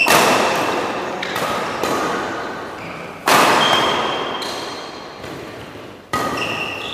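Badminton rally: rackets striking the shuttlecock, five sharp hits with the loudest at the start, a few seconds in and near the end, each ringing on in the hall's echo. Short high squeaks from shoes on the court floor come between hits.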